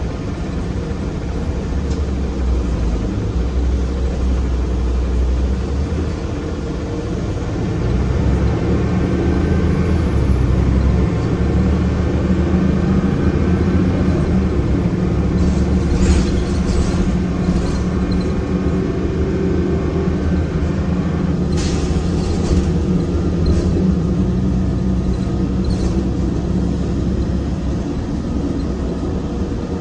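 Interior sound of a 2008 Orion VII NG CNG transit bus under way: its Cummins Westport ISL G natural-gas engine and ZF six-speed automatic running with a steady low rumble, heard inside the cabin near the rear. The engine note grows louder about eight seconds in, and two short harsh noises come a little past halfway and again a few seconds later.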